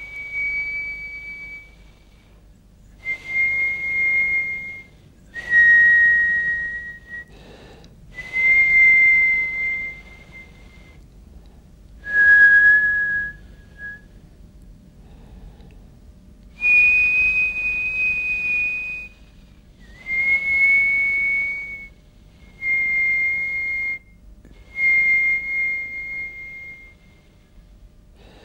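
A series of about nine steady, high whistled notes, each held one to two seconds with a breathy hiss, split by short pauses and shifting slightly in pitch from note to note.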